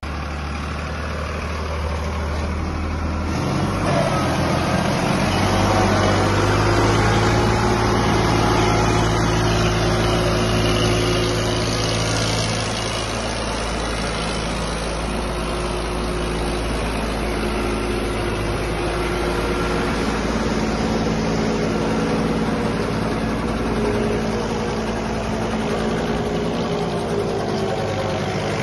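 Farmtrac tractor's diesel engine running under load while pulling a silage trolley bogged in mud. Its note steps up about three seconds in and is loudest for the next several seconds, then settles to a steady working run.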